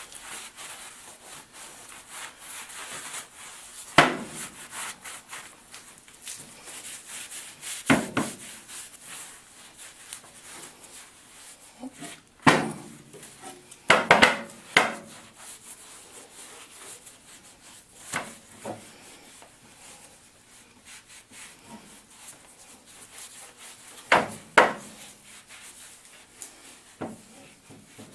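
A rag rubbing over vise parts as they are wiped down with acetone. About ten sharp knocks come through it, some in quick pairs, as parts are handled and set down.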